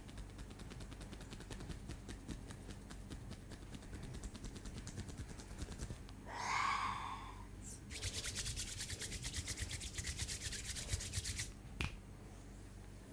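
Hands rubbing fast over hair and scalp in a head massage, a rapid rasping rub that gets louder and denser about eight seconds in. A brief louder swish comes just past the middle, and a single sharp click near the end.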